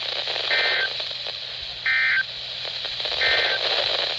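Three short, warbling digital data bursts of EAS/SAME tones heard over a weather radio's hiss, about a second apart. Such short bursts right after a broadcast warning are the end-of-message code that closes an alert.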